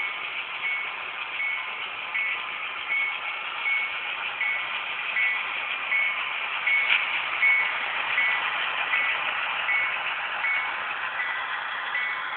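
Sound-decoder bell of an HO-scale Southern Pacific GP40X model diesel locomotive ringing, a short ding about every three-quarters of a second, over the steady noise of the running model train.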